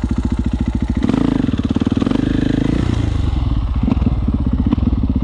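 KTM motorcycle engine running at low revs, then revving up about a second in as the throttle is opened to lift the front wheel into a wheelie, and easing off again about three seconds in.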